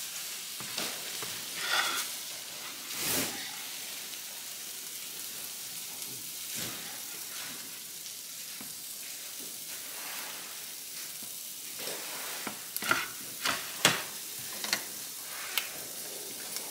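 Steady sizzling from hot pans on an electric stovetop, with a metal spoon scraping and clinking against a skillet as cooked broccoli is served onto a plate; a cluster of sharper clinks and knocks comes near the end.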